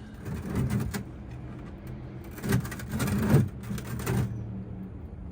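Two bouts of handling and rustling noise, a short one and then a longer one about two seconds in, over a steady low hum: an oil filter that has just been loosened is being worked off by hand.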